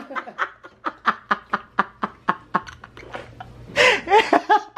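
A man laughing hard in quick breathy bursts, about five a second. It eases off briefly, then breaks out louder again near the end.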